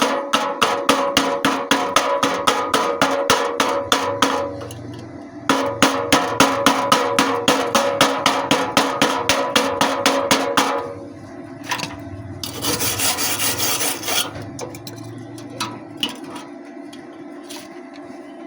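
Hand cleaning of slag off a fresh stick weld on thin galvanized steel: rapid, even metal strokes at about five a second in two runs, with a short pause about four and a half seconds in. A brief hissing scrape near thirteen seconds is followed by a few scattered taps.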